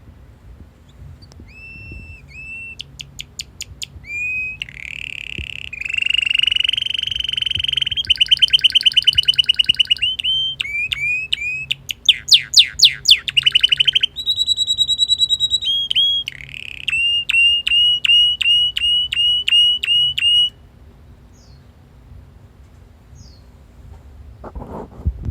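Male red canary singing a long song of whistled notes, rolling trills and fast runs of repeated chirps; the song stops about 20 seconds in.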